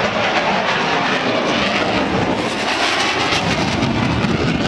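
Loud engine noise from a jet aircraft flying past, a dense steady noise whose hiss grows strongest about halfway through.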